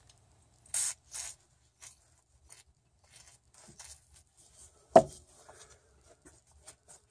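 Hands working a small Mastercraft socket ratchet while cleaning and reassembling it: two short rubbing sounds near the start, scattered light metal clicks, and one sharp knock about five seconds in.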